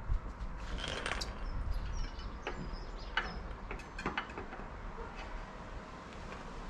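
Scattered light clicks and knocks over a low background rumble, with faint bird chirps.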